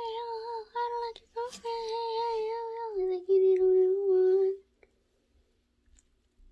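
A young girl singing long wordless notes with a wavering pitch. The note drops lower about three seconds in, and the singing stops about four and a half seconds in.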